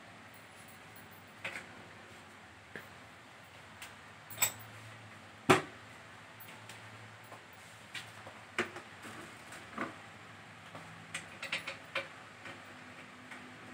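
Scattered short clicks and knocks at uneven intervals, the loudest about five and a half seconds in and a quick cluster near the end, over a faint low steady hum.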